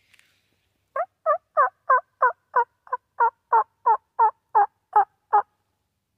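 A series of about fourteen turkey yelps, evenly spaced at roughly three a second, starting about a second in and stopping near the end.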